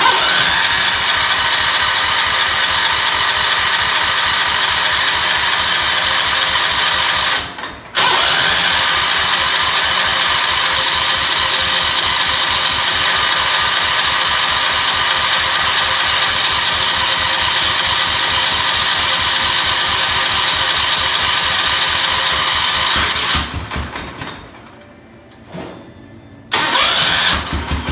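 The rebuilt engine of a Gravely 812 garden tractor being cranked over on its electric starter in long runs, with a steady whine and even pulsing. There is a short break about seven seconds in. It stops about twenty-three seconds in, leaving a few seconds of uneven, fading sound, then the cranking starts again abruptly near the end.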